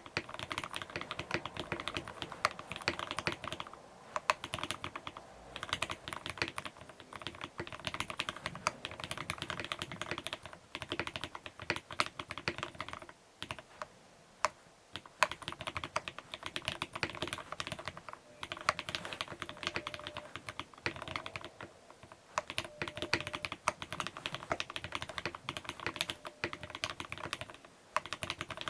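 Mechanical keyboard with vintage Cherry MX Black linear switches on a brass plate, lubed with Krytox and fitted with GMK keycaps, being typed on in fast runs of keystrokes broken by a few short pauses.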